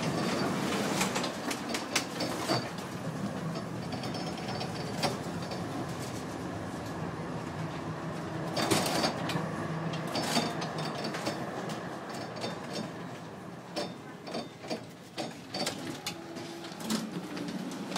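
Type E1 tram in motion, heard from the driver's cab: steady rattling and rumbling of the car and its wheels on the rails, with many sharp clicks and knocks. The noise eases in the second half as the tram slows, with a few separate clicks near the end.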